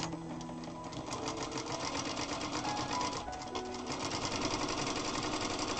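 Zoje ZJ9703AR-D4J industrial lockstitch sewing machine stitching a seam at speed: a fast, even needle chatter that dips briefly a little past three seconds in, then runs on.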